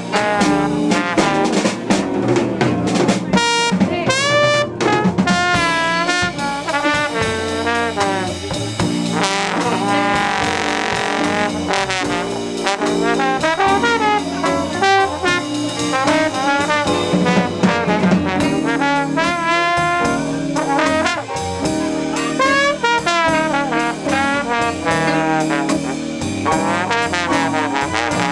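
Live small jazz band: a slide trombone takes a solo of many gliding and bending notes, over upright double bass and a drum kit.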